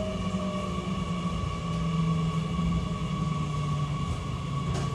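Running sound of a JR Kyushu 813 series electric train from inside the motor car: the traction motor and inverter whine over a steady rumble of wheels on rail, the main whine slowly falling in pitch as the train slows. A brief click near the end.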